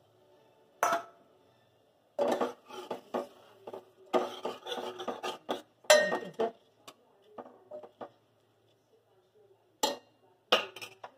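Metal spoon stirring chickpea curry in a pressure cooker, clinking and scraping against the pot's metal sides in a run of sharp knocks, with two more sharp knocks near the end.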